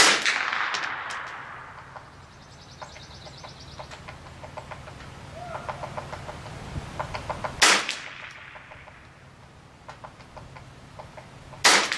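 Three shots from a Glenfield Model 60 semi-automatic .22 Long Rifle rifle: one at the start, one about eight seconds in and one just before the end, each sudden and followed by a short echo. Faint chirps and ticks sound between the shots.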